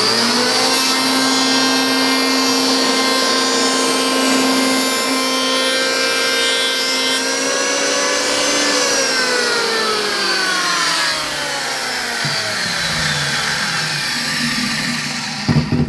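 Makita electric hand planer's motor and cutter head spin up with a rising whine and run at steady speed through a single light pass along a board, set for a shallow 1/64-inch cut. It is then switched off and coasts down, the whine falling in pitch for about seven seconds.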